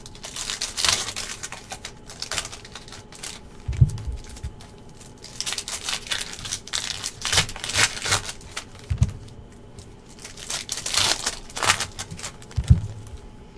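Foil wrapper of an Optic football hobby card pack crinkling and tearing open in the hands, in several bursts. There are three dull thumps in between as the pack is handled.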